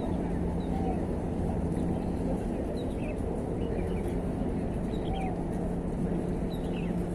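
Birds chirping in short, falling calls every second or so over a steady low outdoor rumble with a faint hum.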